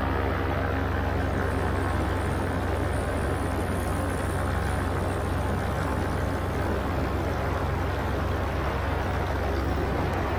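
Paramotor (powered paraglider) engine running at a steady throttle in flight: a constant low drone with wind noise on the microphone.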